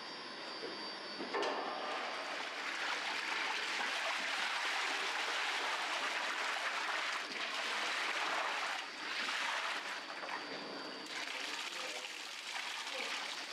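Water from a tap or hose gushing and splashing into the steel bowl of a spiral dough mixer as it fills. The rush comes in about a second in and eases near the end.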